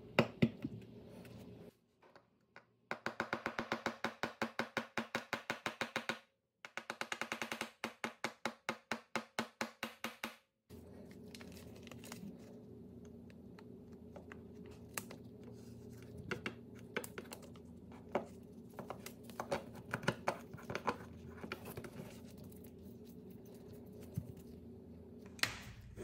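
Small metal parts (a cover plate, nameplate and tiny screws) being handled and fitted on a work surface: scattered light clicks and taps over a low room hum. Between about three and ten seconds in come two runs of rapid, evenly spaced, slightly ringing ticks, about eight a second.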